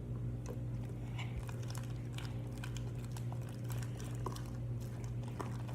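Homemade glitter slime being stirred in a bowl: faint, scattered squishes and small clicks over a steady low hum.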